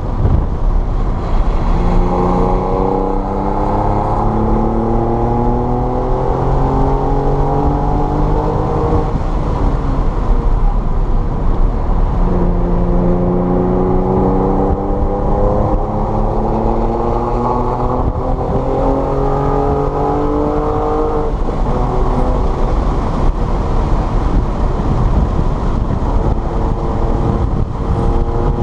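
Car engine accelerating hard on a race track, its pitch climbing over several seconds, easing off about nine seconds in, then climbing again for a long pull and once more near the end. A steady low rumble of road and wind noise runs underneath.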